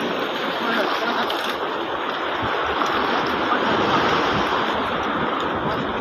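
Steady rushing noise of sea surf washing on the shore.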